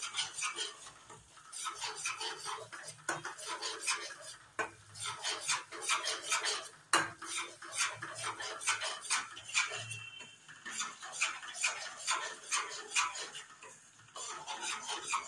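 Steel spoon scraping and clinking against a stainless-steel kadai while semolina and wheat flour are stirred as they roast in ghee, in quick, irregular strokes several times a second.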